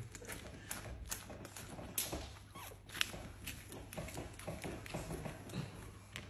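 Hardened green wax face mask being peeled off skin by hand, giving irregular sticky crackles and small snaps, sharpest about two and three seconds in.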